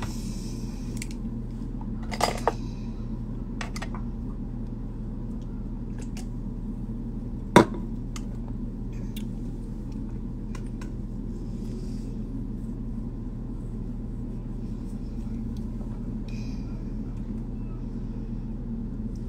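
Steady low hum of room noise, with a few faint clicks and one sharp click about seven and a half seconds in.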